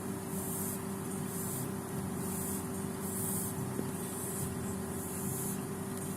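Madagascar hissing cockroaches hissing in short, high-pitched bursts, about one a second, over a steady low hum.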